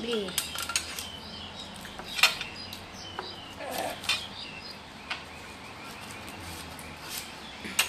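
Clicks and light clinks of tableware and packaging being handled on a table, the loudest about two seconds in, with faint short high chirping sounds in between.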